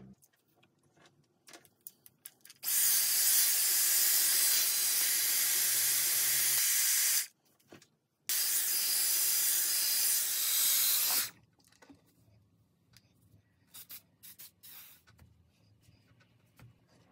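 Dyson Airwrap styler blowing air through its round brush attachment: a steady rushing hiss, switched on twice for about four and three seconds, cutting off sharply each time. Faint clicks and handling rustles between and after.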